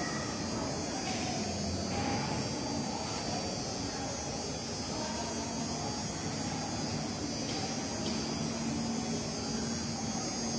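Steady background hum and noise of a large indoor exhibition hall, with a constant drone and two faint ticks a little over halfway through.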